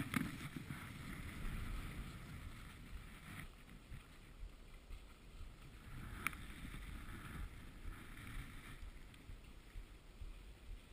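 Skis running over groomed snow: a scraping hiss that swells and fades in stretches, over low rumbling wind noise on the microphone. A sharp click about six seconds in.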